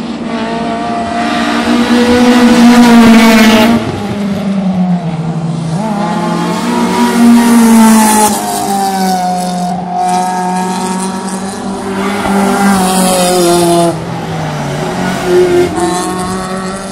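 Honda Integra Type-R race car's four-cylinder engine and loud exhaust at high revs as it passes. The pitch climbs, then drops sharply about three times as the driver lifts or changes gear, and it is loudest early on and again near the middle.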